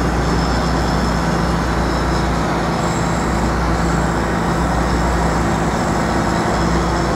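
Steady city street traffic noise with a low, constant engine hum beneath it.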